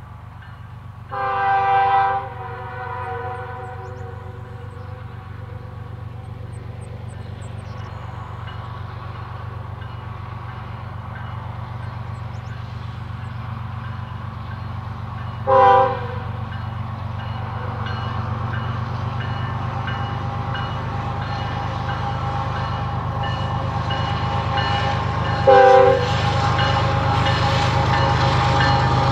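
Canadian Pacific GE ES44AC diesel locomotive approaching, its engine rumble growing steadily louder, sounding its multi-note air horn three times: a blast of about a second near the start, then two short toots, one about halfway through and one near the end.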